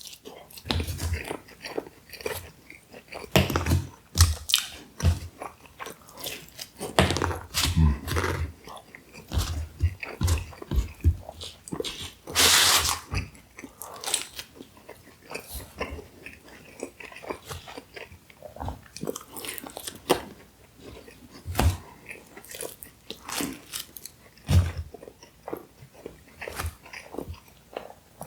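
Close-miked eating of Pizza Hut takeout food: irregular bites, chewing and mouth smacks, with one louder, longer crunchy burst about midway.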